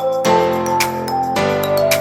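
Background music: a light melody of held notes over steady chords, with regular sharp percussive ticks.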